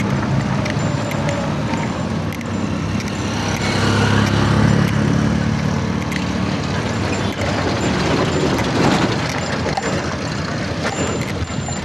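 Vehicle driving on a bumpy dirt road: a steady engine and road rumble that swells a few seconds in, with loose rattling and small knocks throughout.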